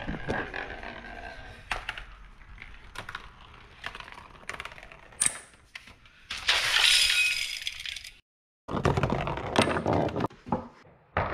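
A homemade chain-reaction (Rube Goldberg) contraption running: a string of small knocks, taps and clatters as a rolling orange, cardboard pieces, boards and card boxes strike and topple along a tabletop, with a louder rattling rush lasting over a second about six and a half seconds in.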